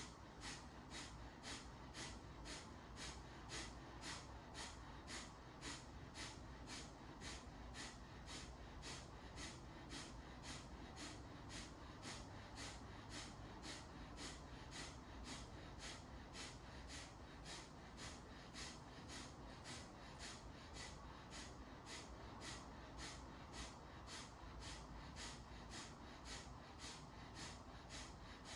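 Kapalabhati (breath of fire) pranayama: short, forceful exhalations through the nose, about two sharp puffs a second in a steady rhythm, driven by snaps of the abdomen.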